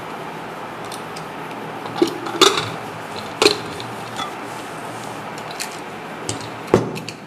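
Aluminium pressure cooker being opened after cooking: a handful of sharp metal clinks and knocks as the lid is twisted free and lifted out, over a steady background hiss.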